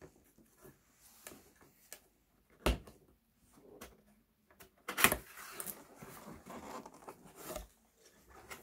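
Cardboard box being handled and opened. There is a sharp knock about two and a half seconds in, a louder knock about five seconds in, and then a few seconds of cardboard scraping and rustling as the lid is lifted.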